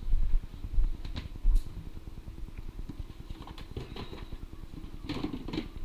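Low thumps of footsteps and body movement on the microphone, then scattered clicks and knocks as a kitchen cupboard is opened and jars on its shelves are handled.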